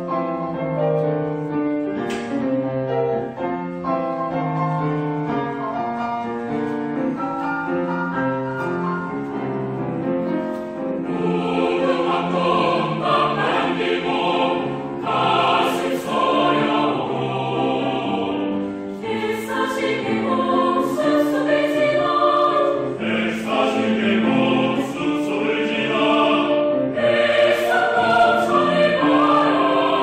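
Background music: a piano melody, with choral singing coming in about eleven seconds in and carrying on.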